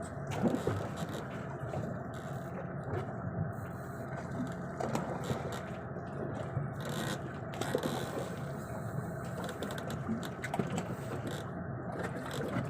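Fishing reel being cranked, a steady mechanical whirring with small clicks, as a lure is retrieved.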